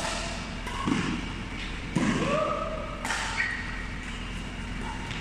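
Badminton rally: rackets striking the shuttlecock with sharp smacks about once a second. Between the hits come the squeaks and thuds of players' shoes on the court mat.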